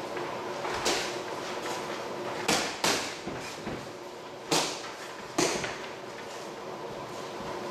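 Boxing gloves landing in sparring: about five sharp smacks spread over a few seconds, two of them in quick succession near the middle, over a steady low hum.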